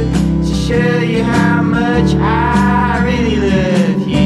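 Background music: a song with a singing voice over steady accompaniment.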